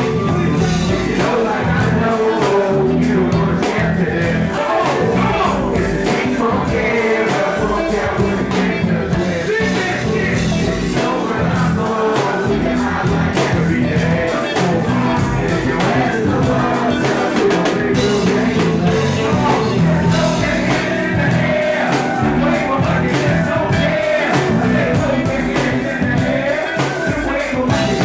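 Rock band music with singing, loud and steady throughout.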